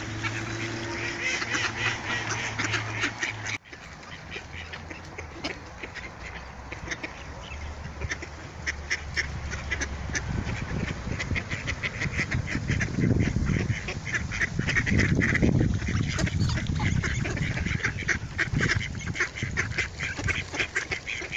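A flock of mallard ducks quacking, many short calls overlapping and repeating throughout; the sound drops out for an instant about three and a half seconds in.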